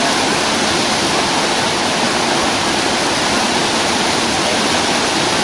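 The Rhine Falls: a large waterfall's steady rush of falling and churning water, an even, unbroken noise with no change in level.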